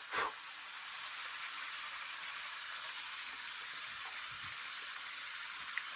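Potato fries deep-frying in hot shortening in a skillet: a steady, even sizzle, with a short breathy sound right at the start.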